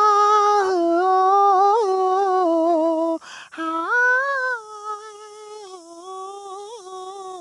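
A man singing in a high falsetto that imitates a female playback singer, holding a long wordless 'aa' note with small pitch bends. He breaks for a breath about three seconds in, then holds a second long note that slowly fades.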